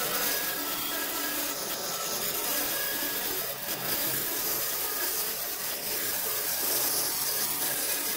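Bandsaw cutting lengthwise through a bark-covered log, the blade running through the wood with a steady sawing noise.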